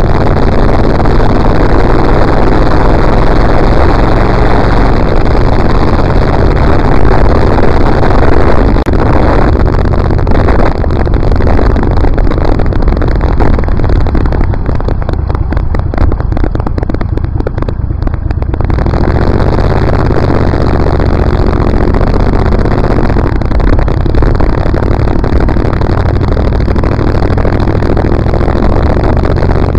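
Motorcycle riding along a rough road: steady engine and road rumble mixed with wind rush on the microphone. For a few seconds past the middle the hiss drops away and mostly the low rumble remains.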